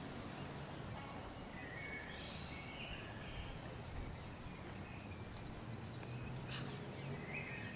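Outdoor background noise, a steady low rumble, with a few short high bird chirps between about two and three and a half seconds in and again near the end, and a single faint click.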